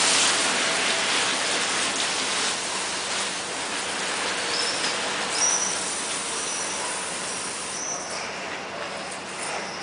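Garden-hose spray hissing onto a boat cart's PVC deck cover and the wet tiles, fading away over the first few seconds as the spray stops, leaving water running and dripping. A few short high bird chirps come in from about halfway through.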